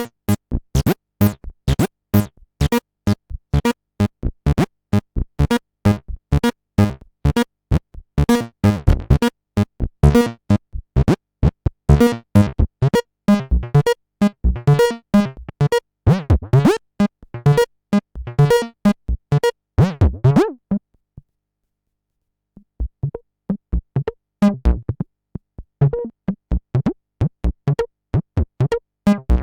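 Behringer TD-3-MO analogue acid bass synthesizer playing a fast sequenced line of short staccato notes. The line stops for about a second and a half near the two-thirds mark, then starts again with sparser notes.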